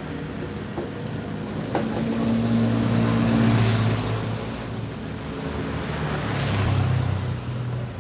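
Motorbike engines running in street traffic, swelling louder as vehicles pass, once about two seconds in and again near the end.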